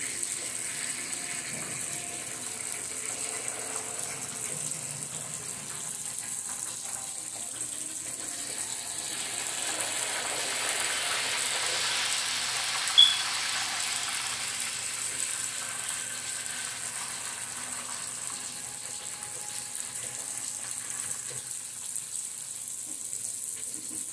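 Thin pork chops frying in lard in a pan: a steady sizzle that swells for several seconds around the middle, with a utensil scraping the pan and one sharp click just past the middle.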